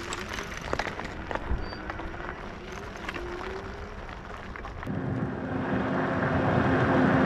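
E-bikes being ridden: a faint whine rises slowly in pitch over the first few seconds. Then, from about five seconds in, a louder rushing noise with a steady hum builds and is cut off suddenly at the end.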